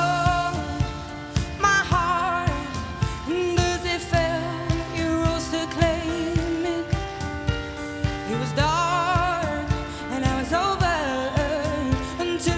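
Woman singing a pop ballad live, with strong vibrato on the held notes, over band accompaniment with a steady beat.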